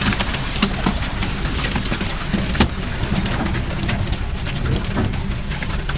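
Water from a deck hose splashing onto cod in a net chute, with scattered sharp splashes and knocks, over the steady rumble of the fishing boat's engine.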